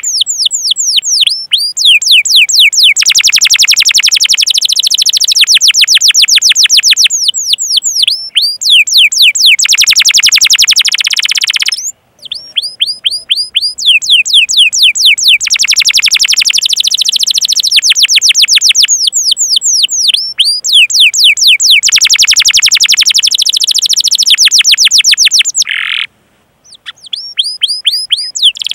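Domestic canary singing loudly: fast trills of repeated downward-sweeping 'cuit' notes alternating with dense rolling passages, breaking off sharply twice.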